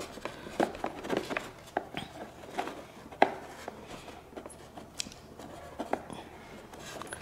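Light, irregular clicks and taps of plastic fuel tubing and a metal hemostat being handled while a fuel line is worked onto a fuel pump's barbed fitting, with a sharper click about three seconds in.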